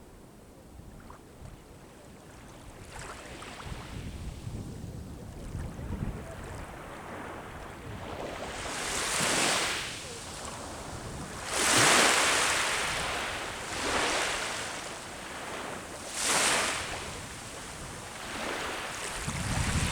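Sea waves breaking and washing up the shore: four surges of surf swell and fade, the loudest about twelve seconds in. Wind rumbles on the microphone near the end.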